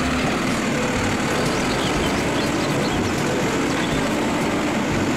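Automated side-loader garbage truck's engine running steadily while its mechanical arm lifts and tips a wheelie bin into the hopper.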